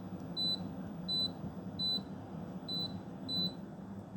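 Haier split air conditioner giving short high beeps, five of them at about one every 0.7 seconds, each acknowledging a button press on its remote as the set temperature is stepped. A steady low hum lies underneath.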